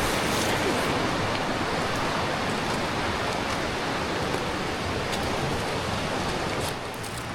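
Mountain creek rushing over rocks: a steady wash of running water, turning a little quieter near the end.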